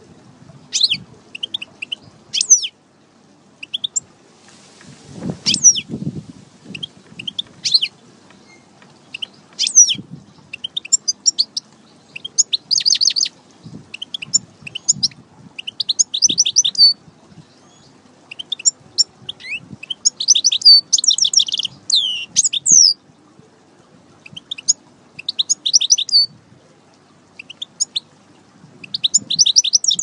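European goldfinch singing: repeated bursts of quick, high twittering chirps and trills, with the loudest runs about twenty seconds in and at the very end. A brief rustle and some low knocks come about five seconds in.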